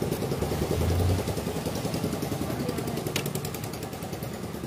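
A vehicle engine idling steadily, a rapid low throb that swells briefly about a second in. A single sharp click comes a little past the middle.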